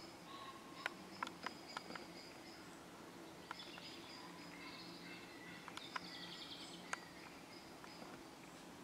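European badgers and cubs moving about at the sett entrance: a scatter of faint sharp clicks and scratches as they scrabble and jostle in the soil, with thin high chirps coming and going.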